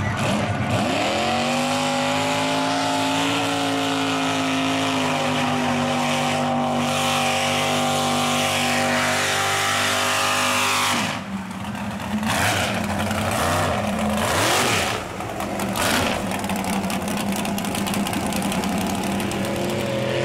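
Big-tire lifted mud truck's engine revving up about a second in and held at high revs while plowing through a mud pit, with mud and water spraying. Around two-thirds of the way through, the revs drop, rise and fall in bursts, then settle into steady running.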